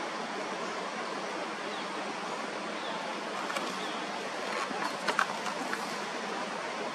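Steady rushing of a waterfall or fast creek, with a few light clicks near the middle.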